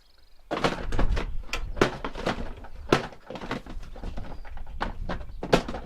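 Lawn mower parts being handled and fitted together: a rapid, irregular run of knocks and clatters with a few sharper knocks, over a low rumble.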